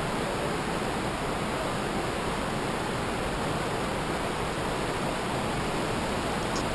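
Whitewater of the Zambezi River's rapids rushing steadily.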